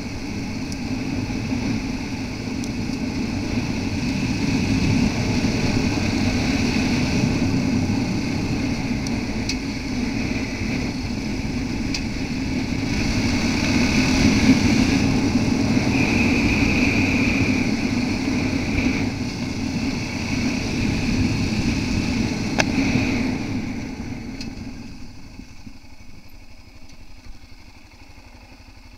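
Yamaha XT660R's single-cylinder four-stroke engine running steadily under way on a gravel road, building to its loudest about halfway through. With about five seconds left its note falls away to a much quieter low running as the bike slows.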